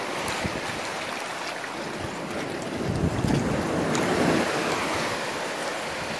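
Shallow seawater sloshing and splashing as a hand gropes among rocks and seaweed in a tide pool, with wind buffeting the microphone. The splashing swells about three seconds in and eases off after four and a half.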